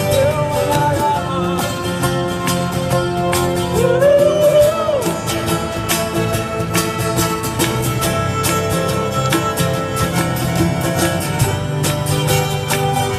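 Live folk-rock band playing an instrumental break: strummed acoustic and electric guitars and a fiddle over a steady beat on a cajón. A sliding high note rises and falls about four seconds in.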